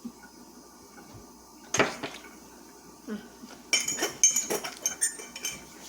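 Dishes and cutlery clinking and knocking: one knock about two seconds in, then a quick run of ringing clinks.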